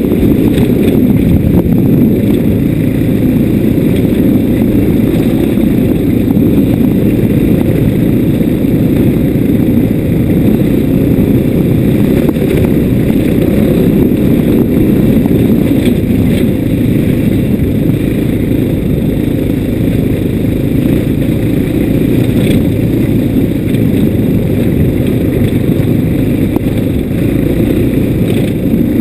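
Steady, dull, low rumble of a vehicle riding along a rough dirt track, picked up by a camera mounted on it.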